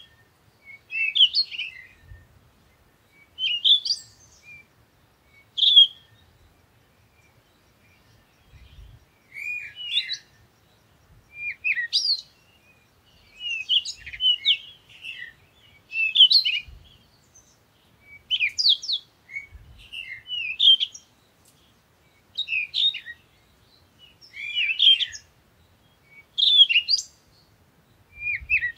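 A small bird chirping and twittering in short, high phrases that come roughly every one to two seconds with brief pauses between them.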